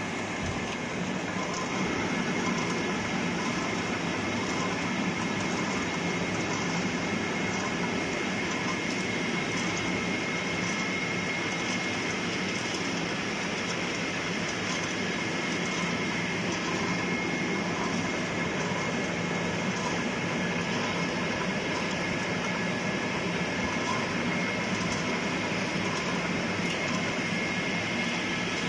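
Wood pellet production line machinery running steadily: a continuous mechanical din with several steady whining tones, unchanging throughout.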